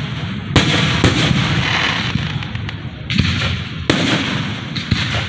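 Aerial fireworks shells bursting: about five sharp booms, each trailing off into a rolling rumble and crackle.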